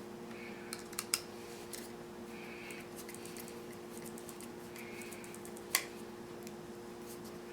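Scattered light clicks and taps of small plastic model-kit parts being handled and fitted together, with a sharper click a little past halfway, over a steady low hum.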